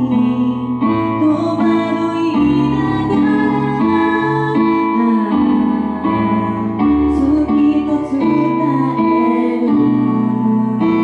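A woman singing into a handheld microphone, amplified, holding long wavering notes over instrumental accompaniment.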